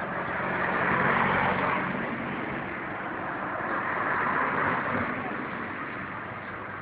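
Motor vehicles driving past, two passing close one after the other, over a steady low engine hum.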